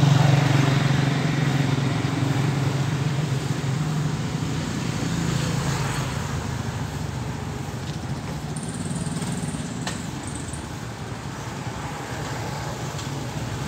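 Road traffic: a passing motor vehicle's engine, loudest at the start and fading over about six seconds, with a few faint clicks later on.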